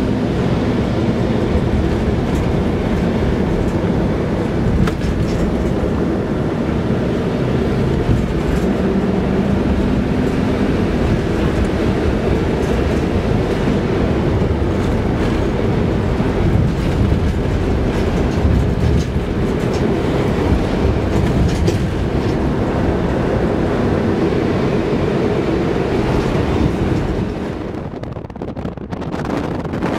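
Car driving along a road, heard from inside the cabin: steady engine and tyre rumble with road noise, dropping briefly near the end.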